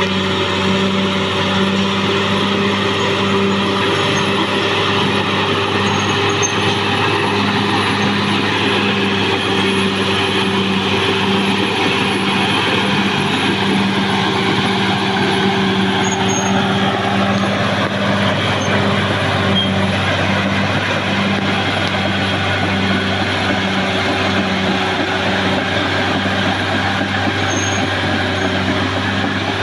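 Caterpillar D6R XL bulldozer running continuously as it works, its diesel engine humming steadily with a regular pulsing beat; the engine note shifts in pitch around the middle.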